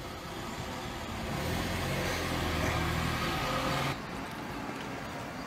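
A low engine hum over outdoor background noise. It swells about a second in and cuts off abruptly about four seconds in.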